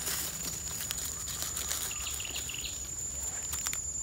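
Outdoor forest ambience: a steady high-pitched insect drone under a short run of chirping calls about halfway through, with a few faint clicks near the end.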